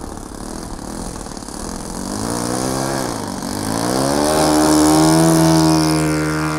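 Radio-controlled model Zero fighter's engine and propeller on the take-off run: the pitch dips and comes back up about halfway through, then climbs to a steady high tone, loudest as the plane lifts off near the end.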